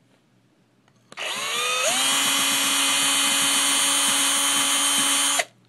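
Electric drill spinning an engine brush to hone rust out of a solenoid valve's bore. It starts about a second in, rises in pitch as it spins up, runs steady, then stops shortly before the end.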